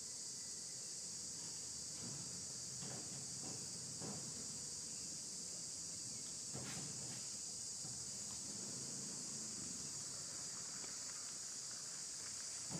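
Steady high-pitched chorus of insects buzzing without a break, with a few faint taps and rustles.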